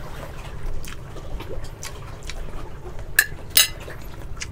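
A person eating: quiet chewing and handling of food on a plate, with two sharp clicks a little after three seconds in.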